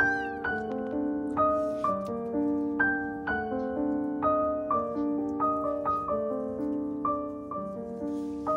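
Background piano music: a gentle, slow melody of single struck notes that ring and fade, one after another at an even pace.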